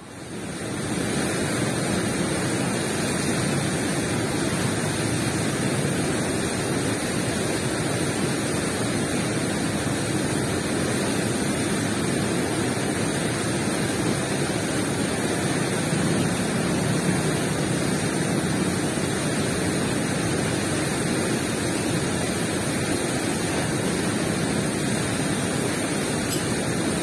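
Steady, even rushing of water pouring through a river weir's gates, unbroken throughout.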